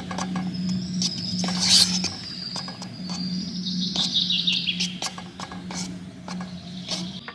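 Birds chirping and calling, with a steady low hum underneath that cuts off near the end, and scattered light clicks.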